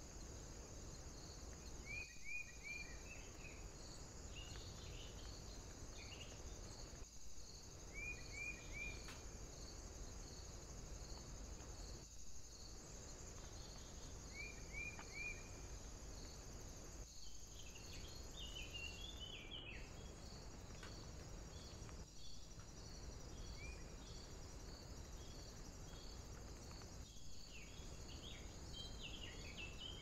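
Faint woodland ambience: a steady high-pitched hiss with a faint chirping pulse about twice a second, and a small bird's quick three-note call heard several times, a few seconds apart, with a brief flurry of chirps about two-thirds of the way through.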